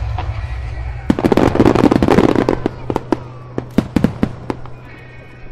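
Fireworks: about a second in, a dense cluster of shell bursts and crackling pops goes off, then thins out into scattered single bangs.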